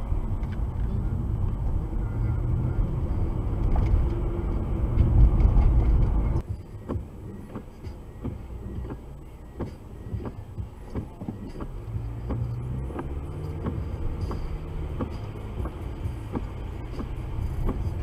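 Car interior noise picked up by a dashcam: steady engine and tyre rumble while driving, swelling about five seconds in. It drops abruptly after about six seconds to a quieter low hum with scattered light irregular ticks while the car waits at a rain-soaked intersection.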